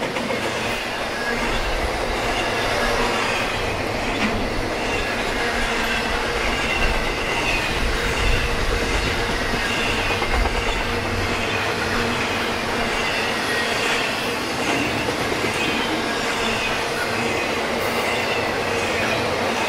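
BNSF intermodal freight train's cars rolling past on the main line: a steady rolling rumble from wheels on rail, with faint high squealing tones wavering through it.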